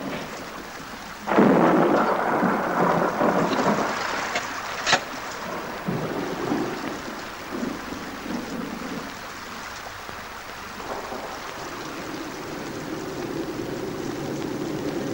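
A thunderclap breaking about a second in and rumbling on for several seconds, with a sharp crack near the middle, then steady rain.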